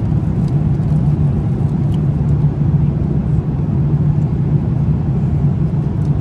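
Airliner cabin noise in flight: the steady low hum of the jet engines and rushing air, unbroken and fairly loud.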